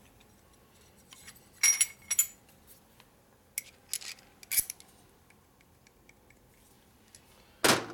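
Light metallic clinks and taps of a steel Harley shovelhead rocker arm, its shaft and shim washers being handled to check rocker end play, with a louder clank near the end as a part is set down on the bench.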